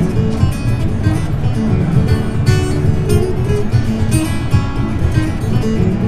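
Dreadnought acoustic guitar played solo as an instrumental, a quick run of picked and strummed notes over a steady bass.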